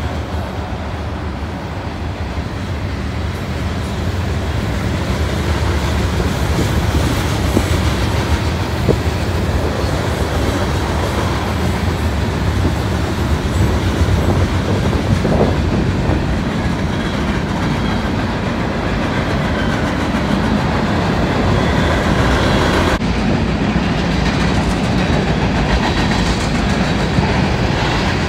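Freight cars of a Union Pacific manifest train rolling past steadily, steel wheels running on the rails with a continuous low rumble.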